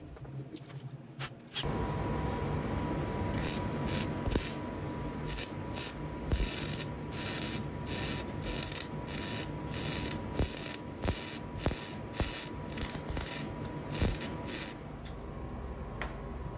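MIG welding torch stitch-welding steel, a run of short crackling, hissing bursts at about two a second, over a steady hum that starts about a second and a half in.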